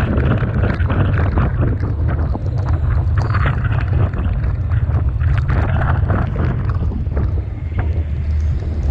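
Typhoon wind buffeting the microphone with a constant deep rumble, over rough sea with waves breaking and a dense crackle of splashing water and spray.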